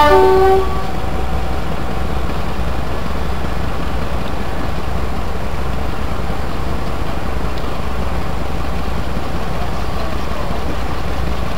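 Class 42 Warship diesel-hydraulic locomotive D832 'Onslaught' idling, its twin Maybach V12 diesel engines giving a steady low drone. A brief pitched sound is heard at the very start.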